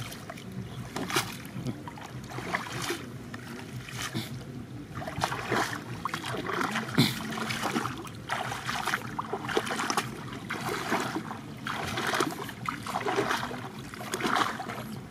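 Water splashing and sloshing as a person wades through shin-deep floodwater, a swish with each step roughly once a second.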